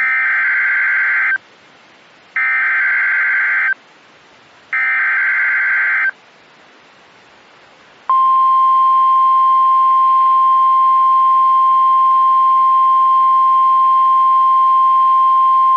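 Three NOAA Weather Radio SAME header data bursts, each a buzzy digital warble about a second and a half long with about a second between them. After a short pause, the steady single-pitch 1050 Hz weather radio warning alarm tone starts about eight seconds in and holds unbroken.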